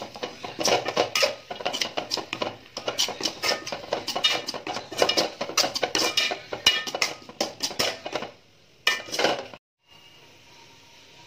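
Steel spatula scraping and clattering against a metal pan in quick repeated strokes while shredded vegetables are stir-fried. The strokes stop about eight seconds in. One more short flurry comes around nine seconds, then it cuts off to a quiet steady background.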